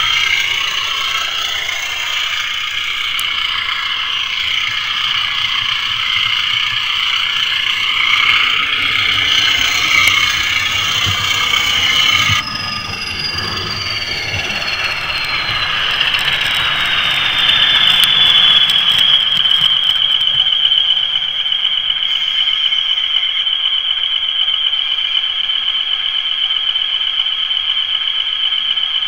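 Bachmann Class 20 model diesel locomotive running with its Howes sound file, heard from a camera riding on the model: a high-pitched whistle over the running noise of the wheels and motor. About halfway in, the whistle glides down in pitch as the model slows, then holds steady while it stands.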